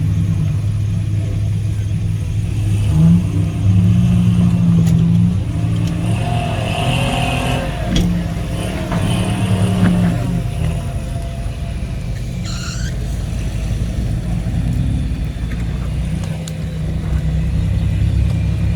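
Off-road vehicle engine running at low speed and revving up in spells while crawling over rock, with a brief high squeak about two-thirds of the way through.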